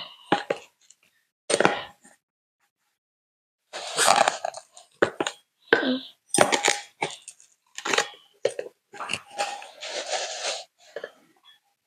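Metal measuring cup scooping and scraping through granulated sugar in a plastic canister: a string of short scrapes and clinks with brief pauses between them.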